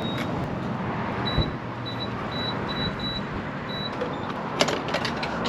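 Gas pump keypad beeping as buttons are pressed: about seven short, high beeps at uneven intervals over a steady background of traffic and wind. A few sharp clicks follow near the end.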